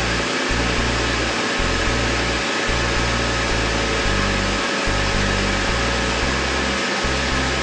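PFT Ritmo Powercoat spraying machine running under pressure: a steady, loud whooshing machine noise, with a low note underneath that steps up and down in pitch every second or so.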